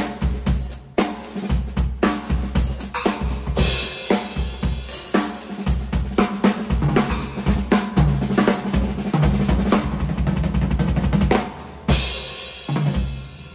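Drum kit played in a busy groove and fills: snare, bass drum, hi-hat and Sabian and Zildjian K cymbals, over a backing track with a steady low line. Near the end the playing stops on cymbal crashes that ring out and fade.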